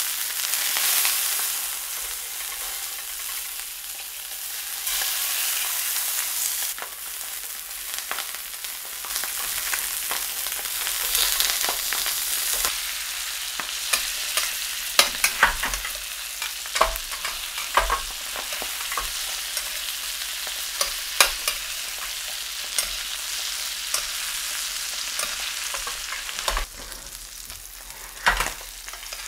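Sea bass fillets sizzling in hot oil and butter in a metal frying pan, the sizzle starting suddenly as the fillets go in. From about halfway, a metal spoon clicks against the pan again and again as the fish is basted.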